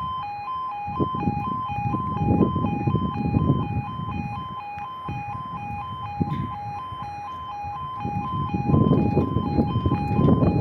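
Level crossing audible warning alarm sounding a two-tone yodel, a lower and a higher tone alternating about twice a second. A low rumbling noise swells near the end.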